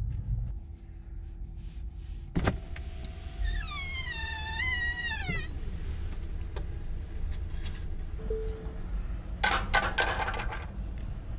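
Low road rumble from a Tesla Model 3 electric car driving slowly. A sharp click comes about two seconds in, a wavering pitched sound follows that slides down and stops, and a short clatter of clicks comes near the end.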